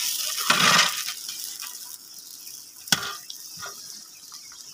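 Long metal ladle stirring a large aluminium pot of boiling broth, the liquid sloshing and bubbling, with one sharp knock about three seconds in.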